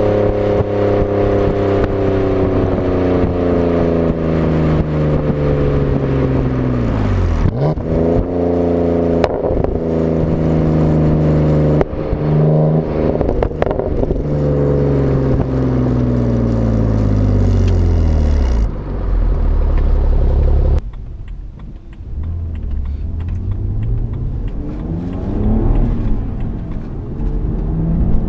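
BMW E90 328i's straight-six heard at the tailpipes of its custom sport exhaust while driving: revs winding down steadily off throttle, with quick dips and jumps in pitch at gear changes several times. About two-thirds of the way in it turns quieter and more muffled, heard from inside the cabin, as the revs climb under acceleration.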